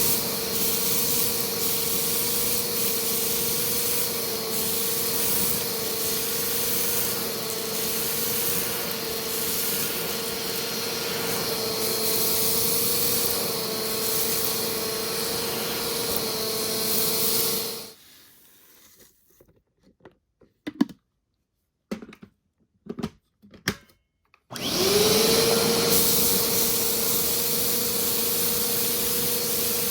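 Vacuum cleaner running steadily with a held whine, switched off about two-thirds of the way through. A few clicks and knocks follow in the quiet pause, then a vacuum cleaner starts up, its whine rising quickly and settling to a steady run.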